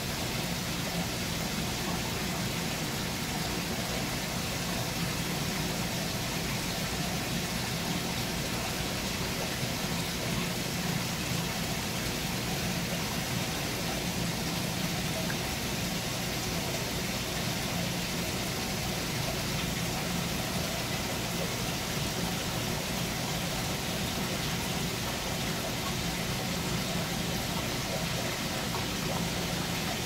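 Steady hiss and low hum of an aquarium system's water circulation and pumps, running evenly with no breaks.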